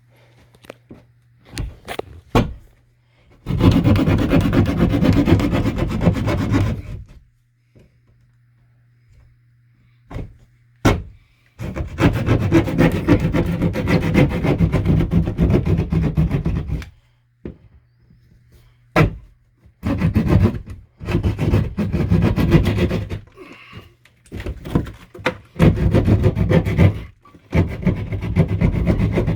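Hand sheetrock saw cutting through drywall with rapid rasping strokes, in four bouts of a few seconds each, separated by pauses and a few sharp clicks.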